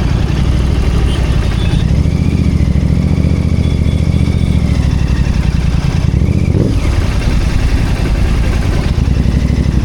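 Royal Enfield Continental GT 650's 648 cc parallel-twin engine running, a steady low exhaust rumble, with a brief dip in the note about two-thirds of the way through before it picks up again.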